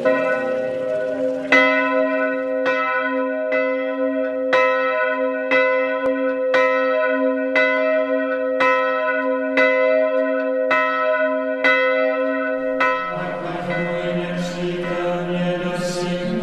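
Monastery church bell tolling, struck about once a second with each stroke ringing on, calling the monks to Vespers. The tolling stops shortly before the end.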